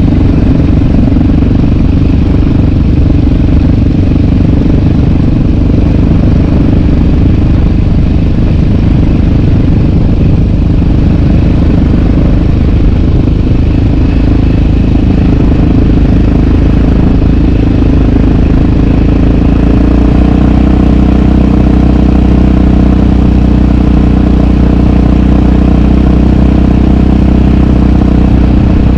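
Yamaha sport ATV's single-cylinder four-stroke engine running loud and close, with some clatter; about twenty seconds in it settles to a steady, even note.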